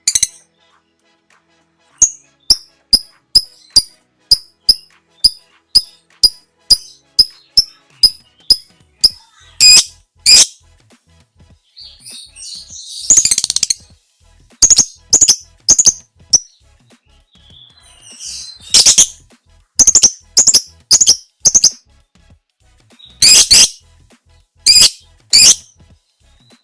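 Lovebird calling: a long run of short, sharp, high-pitched shrieks about two or three a second, then louder, more spaced calls with a brief chattering burst about halfway through.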